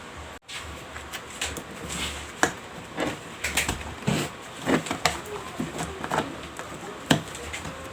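Scattered light clicks and knocks of hands handling electrical cable and tools.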